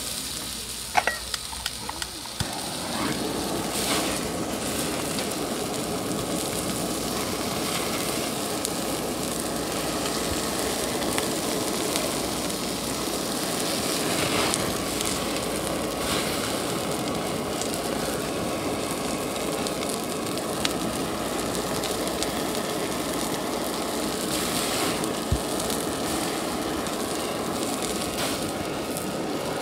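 A handheld gas blowtorch running with a steady hiss as it flame-sears abalone and turban-shell skewers on a griddle. A few sharp clicks come about two seconds in, just before the steady hiss sets in.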